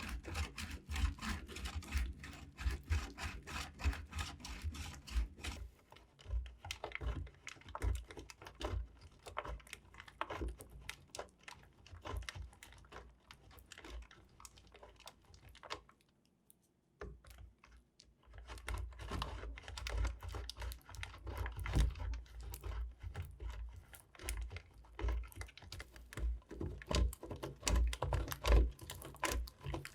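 Knife slicing through soap, a dense run of crisp clicking and crunching cuts that stops for about two seconds midway and then resumes.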